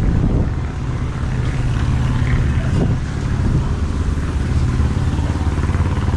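Motorbike engine running steadily.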